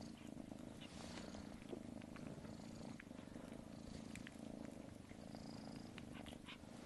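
Kitten purring softly and steadily, with a few light clicks over it.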